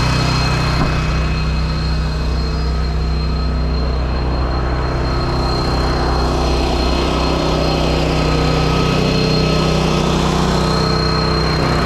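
Engine idling steadily, with a thin steady high tone above it, while it charges a semi truck's dead batteries.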